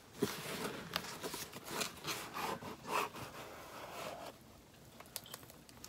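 Cardboard mailer box being handled and its flap lid opened: cardboard rubbing and scraping in short strokes with small clicks, dying down about four seconds in.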